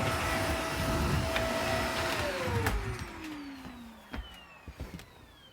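Household vacuum cleaner running with a steady whine, then switched off about two seconds in, its motor whine falling in pitch as it spins down. A few light knocks follow as it winds down.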